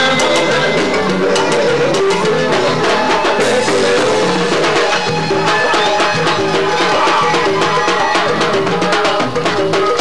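Latin tropical dance music with a band's busy drums and percussion.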